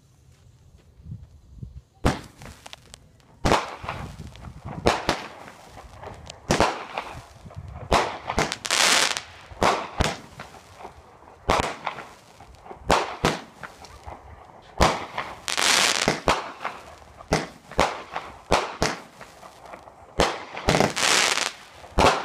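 A 200-gram consumer fireworks cake (Alien Mistress) firing a run of shots, starting about two seconds in: sharp launch thumps and bangs in quick succession, several trailed by about a second of hissing crackle from the bursting effects.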